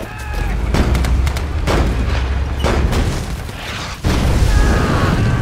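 Battle sound effects: heavy explosions with a deep rumble and several sharp shots or impacts, and a sudden loud blast about four seconds in. A wavering high sound comes in near the end.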